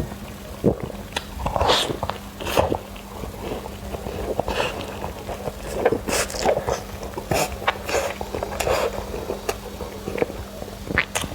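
Close-miked chewing and lip-smacking of a person eating, with irregular wet clicks and smacks.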